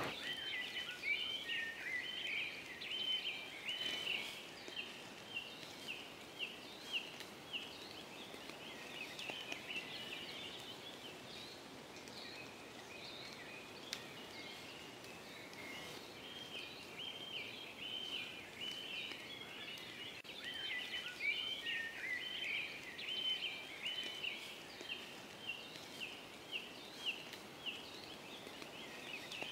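Songbirds singing in woodland: long runs of rapid, high chirping notes, with a pause in the middle.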